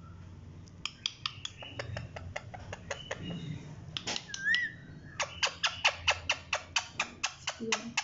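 Indian ringneck parakeet in a wire cage: one short wavering whistle about halfway through, among a run of sharp clicks that grow to about three a second in the second half.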